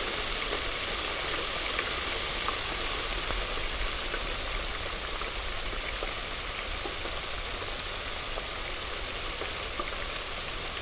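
Battered chicken pieces deep-frying in an electric deep fryer's basket: the hot oil bubbling and sizzling in a steady hiss, with a few faint crackles.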